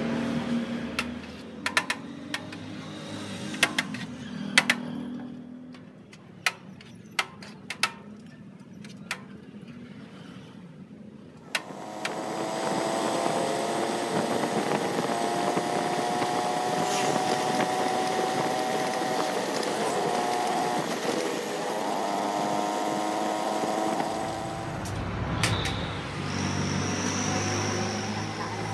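A scattering of sharp clicks, then from about twelve seconds in a motorcycle engine running steadily at road speed.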